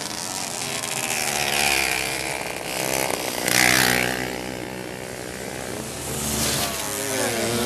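Small two-stroke moped engines (Mobylettes) racing, their pitch rising and falling as they rev, with a louder burst of engine noise about three and a half seconds in.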